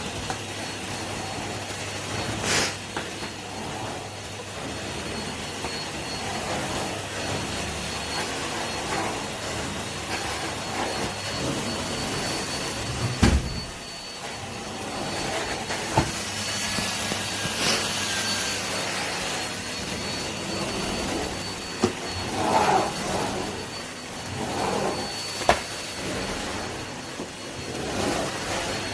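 Henry canister vacuum cleaner running steadily with a thin high whine, with several sharp knocks scattered through.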